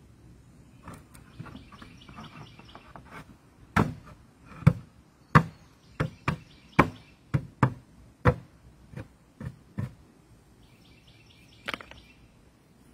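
Cedar fence boards being knocked into place at the corner of a wooden raised bed: about a dozen sharp wooden knocks at an uneven pace through the middle of the clip. Birds chirp briefly before and after the knocking.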